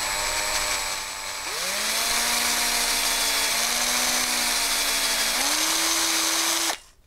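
Hand drill turning a taper reamer through the cross-pin hole of an AR-15 low-profile gas block and barrel, reaming a tapered hole for a taper pin. The motor whine dips and speeds up again about a second and a half in, rises in pitch once more near the end, then stops suddenly.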